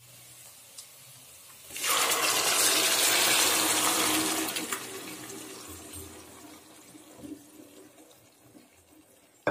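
Watery mashed brinjal and potato poured into hot oil in a kadai: a sudden loud rush of sizzling about two seconds in that gradually dies down to a low bubbling.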